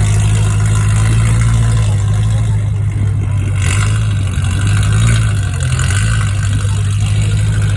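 BMW car engine and exhaust running with a deep, loud rumble, holding a steady low note that wavers briefly a little past the middle.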